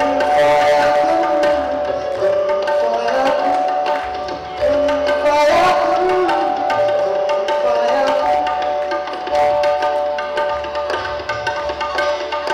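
Live band of tabla, strummed acoustic guitar and keyboard playing, the tabla strokes over long held keyboard notes.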